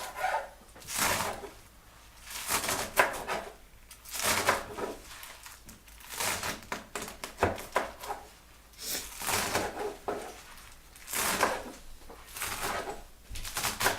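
Chef's knife slicing kale thinly on a cutting board: short runs of quick cutting strokes, the blade tapping the board, repeating every second or two with brief pauses between.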